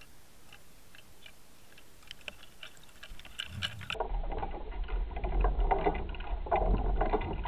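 Underwater audio from a camera towed behind a trolling boat: faint scattered ticks and clicks, then about four seconds in a louder, muffled low rumble of boat-motor and water noise takes over.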